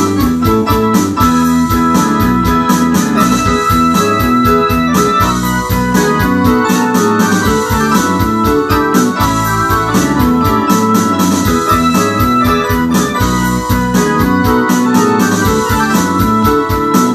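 An Ensoniq SD-1 keyboard played in a rock style, with organ-like and electric-piano-like tones, chords and moving notes over a steady rhythm.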